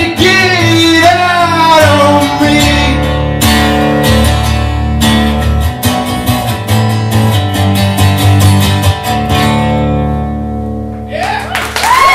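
Acoustic guitar strummed with a male voice holding and bending a sung note over the first couple of seconds; the strummed chords go on and ring out as the song ends. Near the end a whoop and applause from the audience break out.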